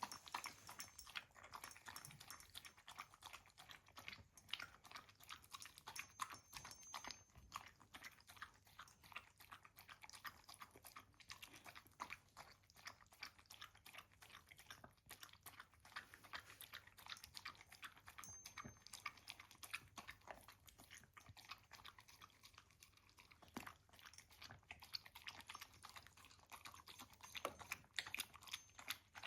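A pet crunching and chewing its breakfast food: a faint, steady run of many small crisp clicks.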